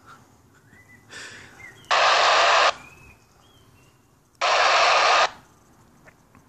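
Baofeng handheld FM radio on the ISS downlink frequency, its speaker giving two short bursts of loud static hiss about two and four and a half seconds in, with a fainter burst just before the first: the squelch opening on noise as the weak satellite signal comes and goes between transmissions.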